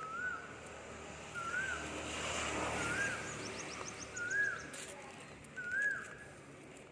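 A bird repeating a short rising-and-falling whistle about five times, roughly one every second and a half. A swell of rushing noise rises and fades under it in the middle, and a brief run of high ticks sounds about three to four seconds in.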